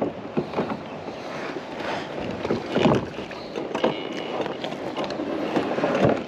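Knocks and rustles of handling in a fishing kayak, over a steady wash of wind and water noise. The strongest knock comes about three seconds in.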